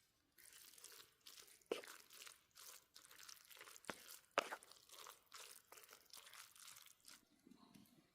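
Faint, irregular crunching and crackling, with three sharper snaps in the first half.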